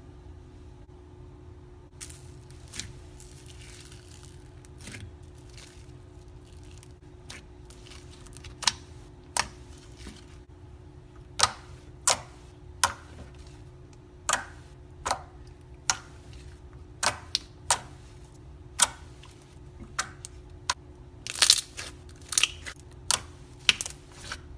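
Slime being poked and pressed by fingers, making irregular sharp, sticky pops and crackles from air pockets. They start about two seconds in, come roughly one a second, and bunch together near the end, over a steady low hum.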